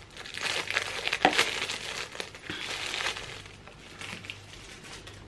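Clear plastic wrapping crinkling as it is pulled off a box of false eyelashes, busiest in the first three seconds and then dying down to faint handling.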